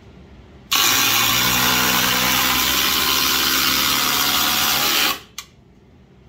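Two cordless impact drivers, a DeWalt DCF840 and a Milwaukee M18 Fuel Gen 3 (2853), hammering together as they drive 6-inch TimberLOK screws into stacked lumber. They start under a second in and cut off together about five seconds in, followed by a single click.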